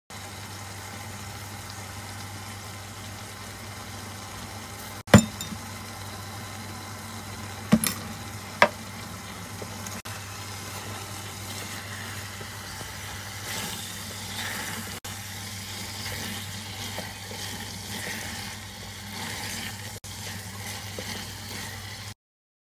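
Beef, onion, carrots and mushrooms sizzling in a pot while being stirred together with a spatula, over a steady low hum. There are three sharp knocks about five and eight seconds in, and scraping stirring noises in the second half.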